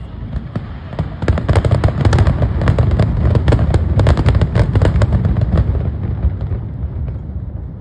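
Fireworks bursting in a rapid, dense barrage of sharp bangs over a low rumble. After several seconds the bangs stop and the rumble dies away.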